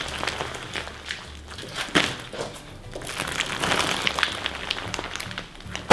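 Crunchy straw slime (clear slime full of cut plastic straw pieces) being stretched and lifted, crackling with many small clicks and pops, with a sharper snap about two seconds in and another at the end. Background music with a steady low beat plays underneath.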